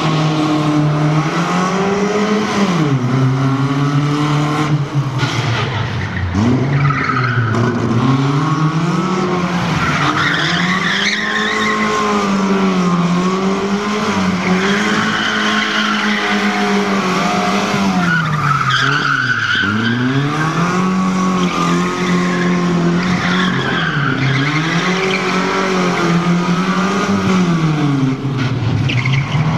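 FSO Polonez rally car's engine revving hard, its pitch climbing and dropping again and again as the car accelerates and brakes through tight turns, with tyres squealing at times.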